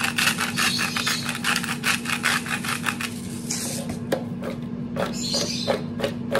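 Himalayan pink salt grinder being twisted, a fast run of gritty rasping clicks for about the first three seconds. From about four seconds in, oiled raw potato strips are tossed in a bowl, giving soft, irregular knocks.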